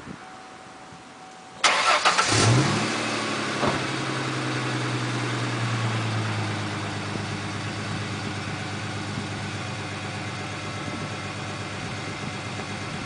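A Mustang's 3.8-litre V6 breathing through Magnaflow true dual exhausts starts up: the starter cranks briefly and the engine catches about a second and a half in, flares up in revs, then settles into a steady, even idle.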